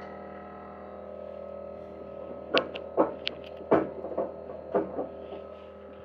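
Compact track loader idling steadily while its pallet forks are slid along the carriage by hand: a cluster of sharp metal clanks between about two and a half and five seconds in as each fork is knocked over a notch.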